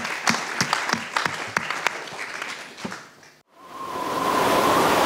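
Audience applauding, the clapping thinning and fading out over about three seconds. After a sudden cut, a steady rushing hiss with a faint whistling tone starts up.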